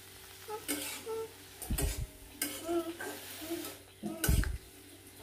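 Metal spatula stir-frying drona (Leucas aspera) leaves with dry fish in a metal kadai: several scrapes and knocks of the spatula against the pan, the loudest about four seconds in, over a light sizzle.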